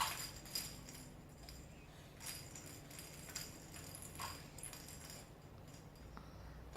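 A few faint, irregularly spaced clinks and rattles of toys being handled during a baby's play.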